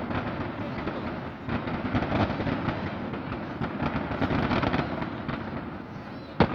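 Fireworks display going off: a dense, continuous crackling of many small bursts, with one sharp, much louder bang near the end.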